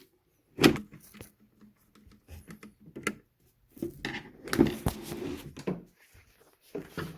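Irregular wooden knocks and clunks from parts of a Yamaha Clavinova CLP-230 digital piano being handled, the loudest about half a second in and again near the middle, with some rubbing between them.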